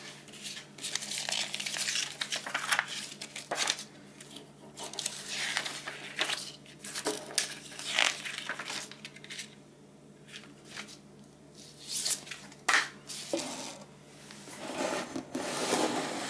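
Paper instruction booklet being handled and its pages turned: repeated crisp rustles and flicks of paper, with a few sharp taps against the table.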